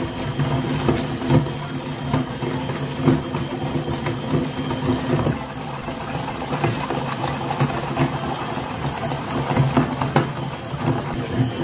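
Electric meat grinder's motor running with a steady hum while its auger turns, with scattered sharp crackles and clicks from crumbly powdery material being crushed.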